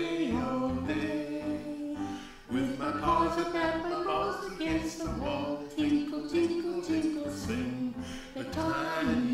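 Music: a song with sung vocals over instrumental backing.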